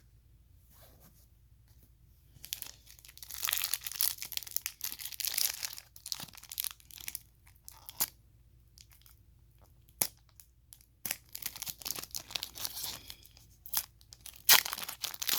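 Foil trading-card packs being torn open and crinkled, with the cards handled. The sound comes in bursts of rustling with a few sharp ticks, and the loudest burst is near the end.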